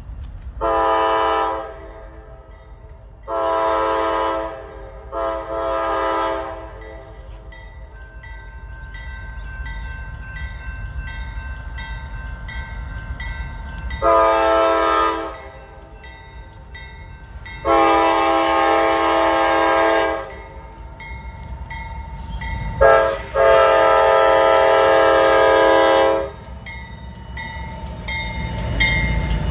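Air horn of a Norfolk Southern freight locomotive sounding the grade-crossing signal twice: long, long, short, long, each time as a multi-note chord. Under it runs the low rumble of the locomotives and the passing train.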